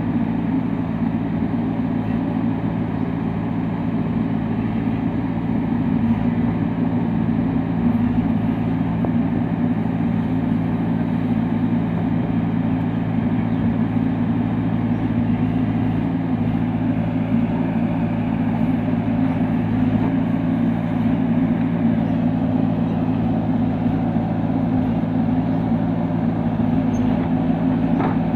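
Backhoe loader's diesel engine running at a steady, unchanging speed.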